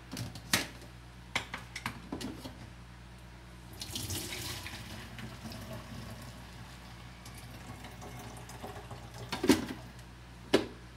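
Blended lemon juice being poured from a blender jar through a strainer into a plastic pitcher: a splashing trickle lasting a few seconds. A few clicks come before it as the jar is handled on its base, and two knocks near the end as the jar is set back down.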